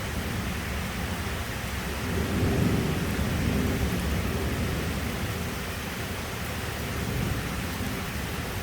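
Heavy rain falling steadily, with a low roll of thunder that swells about two seconds in and fades away over the next few seconds.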